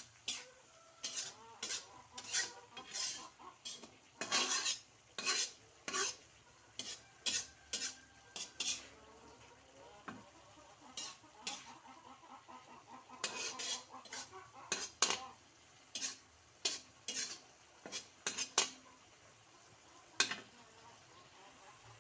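Kitchen utensils clinking and scraping against cookware in short, irregular strokes, one or two a second, with a few pauses.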